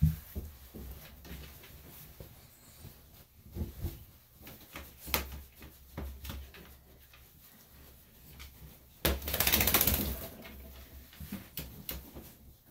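Bath towel rubbed over a small dog's wet coat: soft rustling with scattered light knocks. About nine seconds in, a louder rasping rustle lasts about a second.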